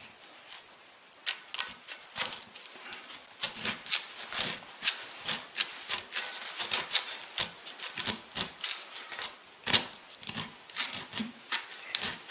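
Spatula scraping and prying around the inside wall of a cast iron skillet in quick, irregular strokes, several a second, starting about a second in. The cornbread is stuck to the pan and is being worked loose.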